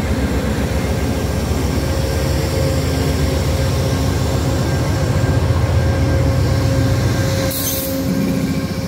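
A pair of Amtrak GE P42DC Genesis diesel locomotives passing close by, their engines giving a loud, steady low rumble with a few faint steady whines above it. A brief hiss comes about seven and a half seconds in.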